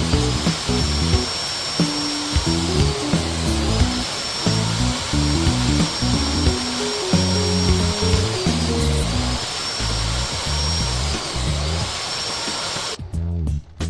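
Background music with a steady beat over a power tool running steadily, its high whine dipping briefly every few seconds as it takes load. The tool stops suddenly near the end.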